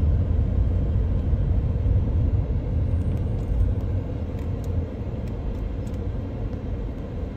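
Steady low rumble of road traffic and car engines, easing a little about four to five seconds in.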